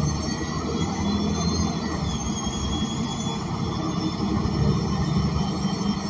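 Cabin sound of a 2020 ENC Axess transit bus under way with no air conditioning running: its Cummins Westport L9N natural-gas engine and Voith automatic transmission running steadily, a low, even drone.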